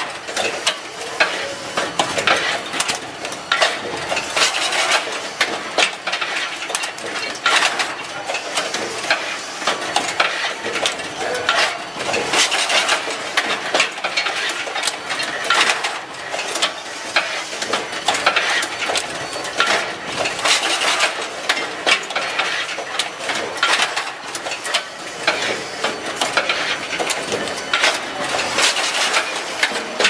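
Power strip automatic assembly machine running: a steady, dense clatter of many quick clicks and knocks from its mechanisms.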